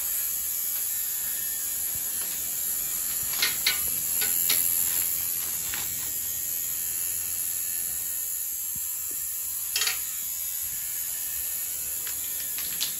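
A small electric device buzzing steadily with a high whine, broken by a few sharp clicks and rustles of handling, a cluster of them a few seconds in and single ones later.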